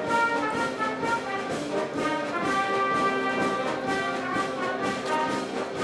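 Live brass band playing a tune, several instruments holding notes together in chords.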